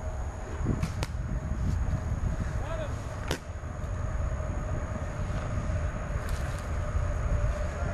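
Scattered sharp pops of paintball markers firing: a loud single shot about three and a half seconds in, with fainter single shots before and after it, over a low rumble.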